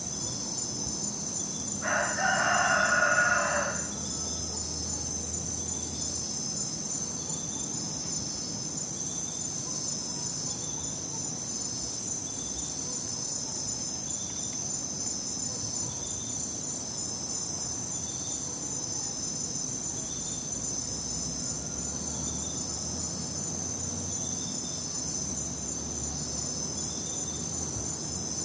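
Crickets chirping in a steady, dense high trill, with a rooster crowing once about two seconds in, the loudest sound.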